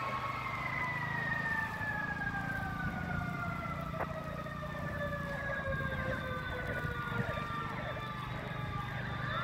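Fire truck siren wailing, its pitch falling slowly and then rising again near the end, over the low steady rumble of the truck's engine.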